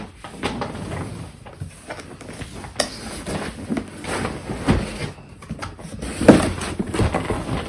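Cardboard box of an LED grow light being opened and handled: scattered rustles, scrapes and light knocks of packaging, with a louder knock a little over six seconds in.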